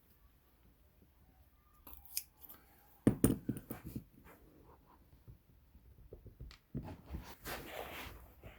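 Small metallic clicks and scrapes of a pin-tumbler rim cylinder being taken apart, with a sharp cluster of clicks about three seconds in and a scraping rustle near the end.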